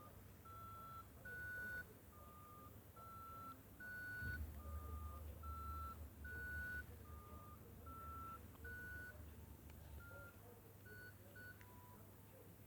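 Nokia 6233 mobile phone playing a simple beeping ringtone: three short rising beeps, repeated four times in an even rhythm, then a few shorter, different beeps near the end.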